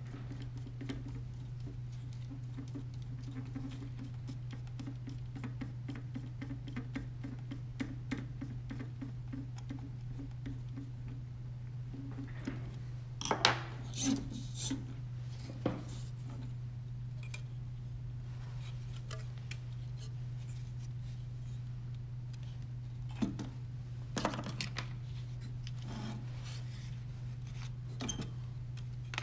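Small clicks, taps and rubbing from hand assembly of a robot dog kit: a hex screwdriver working screws into the plastic body and the plastic frame parts being handled. Clusters of sharper knocks come around the middle and again later, over a steady low hum.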